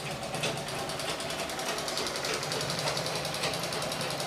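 Electric sewing machine running steadily with a fast, even rattle over a low motor hum.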